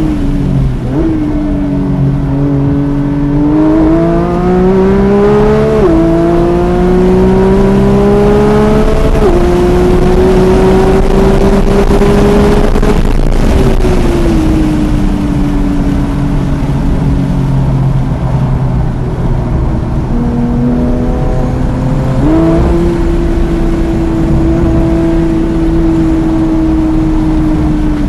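Porsche 992 GT3's naturally aspirated flat-six heard from inside the cabin at full throttle, its pitch climbing through the revs with two sudden drops at upshifts, about six and nine seconds in. It then lifts off and the note falls away under braking, jumps up with a downshift about 22 seconds in, and holds a steady tone through the corner, with road and wind noise underneath.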